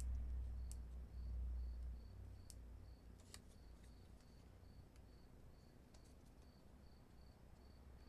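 Small clicks and taps of paper and tape being handled on a craft table, with a low rumble of handling during the first two seconds. Behind it, a steady high chirp repeats about three times a second.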